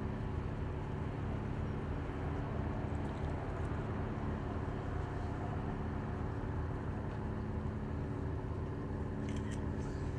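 An engine running steadily at constant speed: a low, even droning hum with no change in pitch. A few faint clicks come near the end.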